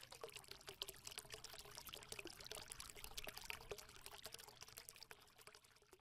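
Faint trickling, crackling sound like liquid being poured, made up of many tiny quick clicks, fading out near the end: a logo-intro sound effect.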